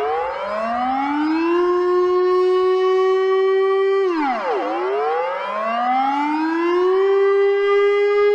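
Emergency alert siren wailing: the pitch climbs over about a second and a half, holds steady, drops sharply about four seconds in, then climbs and holds again.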